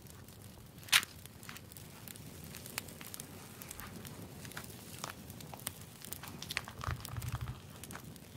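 Paper pages rustling and small taps and clicks as a leather-covered travel journal is closed and its elastic cord wrapped around the cover, with one sharp click about a second in and a dull thump near the end.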